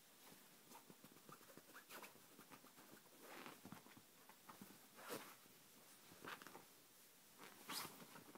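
Faint rustling and scuffling of a Yorkshire terrier moving about on bedsheets, a string of small soft noises with a few short louder ones about halfway through and near the end.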